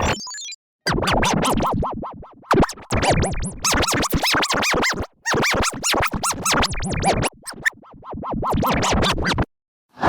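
Heavily processed electronic audio effect: rapid stuttering, chopped fragments with scratch-like pitch sweeps up and down. It cuts out briefly just after the start and again just before the end.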